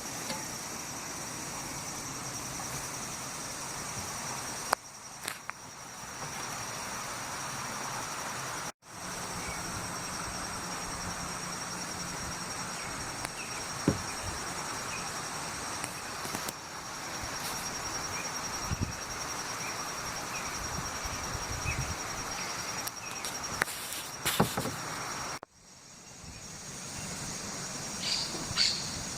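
Insects trilling steadily at a high pitch over a steady rush of wind, with a few short bird chirps near the end.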